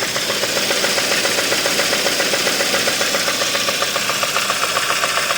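Kia Optima 2.4-litre four-cylinder engine idling with a rapid, even knock ("tac, tac, tac"). It came on after the engine ran about a quart and a half low on oil, and the mechanic takes it for the engine itself knocking, not the knock sensors, with a risk that the engine seizes.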